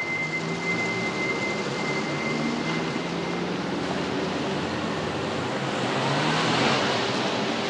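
Town street traffic: car engines running and passing with a steady hum of tyre and road noise, one vehicle passing louder about six seconds in.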